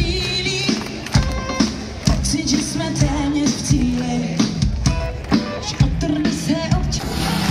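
Live pop music from a stadium concert's PA speakers, heard from within the open-air audience, with a singer's voice over the band.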